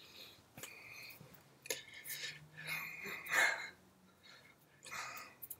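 Breathing and mouth sounds from a man signing without speaking: several short breathy puffs and hisses, the loudest about three and a half seconds in, with a faint hum of voice partway through.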